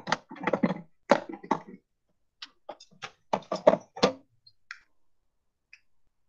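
A quick run of knocks and taps from a ruler and pen being handled on a desk, dense for the first four seconds, then a few faint clicks.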